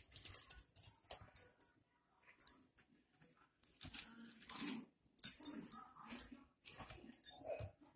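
Irregular clinks, clatters and scrapes of a sandwich toaster, a knife and a ceramic plate being handled as toasted sandwiches are lifted out onto the plate. The sharpest clatters come a little past the middle and again near the end.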